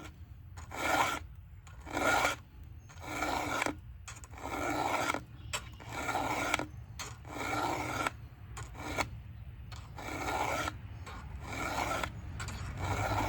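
Round file being stroked across a Stihl MS 500i chainsaw's chain cutters by hand: a rasping stroke about once a second, each with a faint ringing tone.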